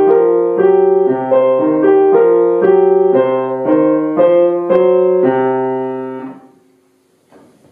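Grand piano played, with chords struck about twice a second, then a last chord a little over five seconds in that rings and fades away, ending the piece. A faint rustle follows near the end.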